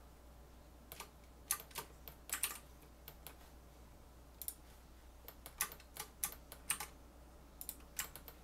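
Computer keyboard keystrokes: scattered single presses and short quick runs of keys, over a steady low hum from a fan.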